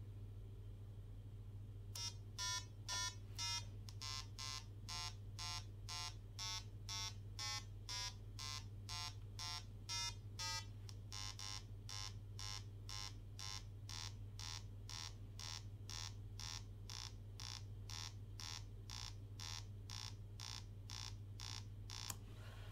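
Small 2-watt speaker driven by an Arduino beeping a square-wave tone, about two short beeps a second, the pitch shifting from beep to beep. It starts about two seconds in and stops suddenly near the end.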